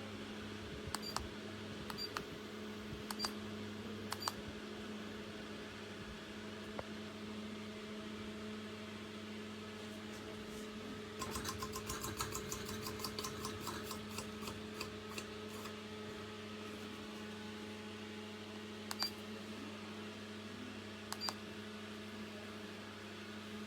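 A steady low electrical hum with sharp clicks. The clicks come about once a second early on, then in a quick run of about six a second for a few seconds, then twice more singly.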